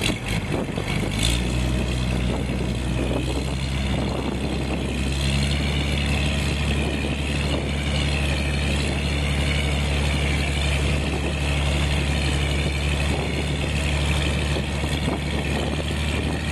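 Passenger boat's engine running steadily at idle. It comes in about a second in, with a wavering high whine above it.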